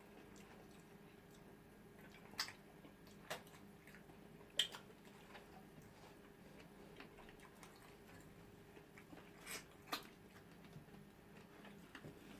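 Quiet eating sounds: soft chewing and a few sharp mouth clicks and smacks over a faint steady hum, as pounded yam and eba are eaten with soup.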